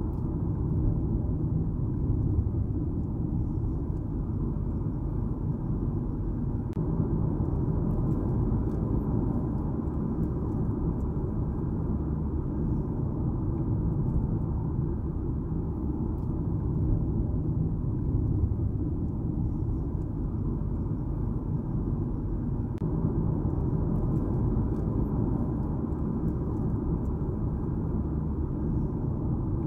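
Steady road noise of a car being driven: a low, even rumble of engine and tyres on the road, with no change in speed.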